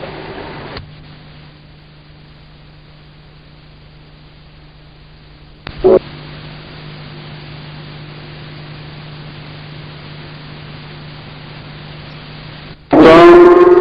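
Steady electrical hum through a public-address system, broken by a brief loud blip about six seconds in. Near the end a loud sustained pitched sound starts and carries on.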